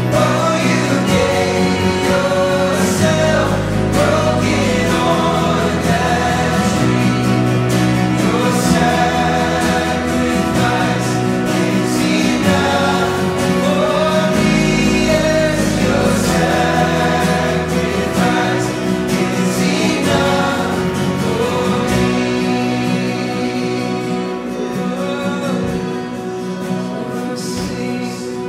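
Worship band playing live: several voices singing together over acoustic and electric guitars, with a deep bass line underneath. The band gets quieter over the last few seconds.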